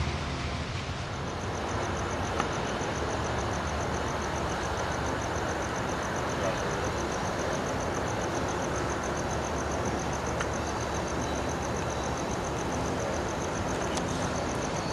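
Steady low rumble and hiss of background vehicle noise, with a fast, high-pitched pulsing tone from about a second in.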